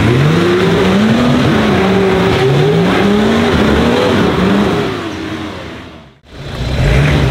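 Off-road 4x4's engine revving up and down several times as it is worked through the trail, then fading away about five seconds in; after a brief break, an engine runs again near the end.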